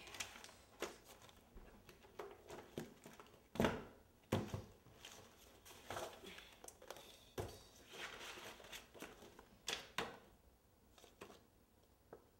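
Papers and spiral-bound notebooks being picked up, shuffled and set down on a wooden floor: paper rustling with a run of soft knocks and thuds, the loudest about three and a half seconds in and again near ten seconds.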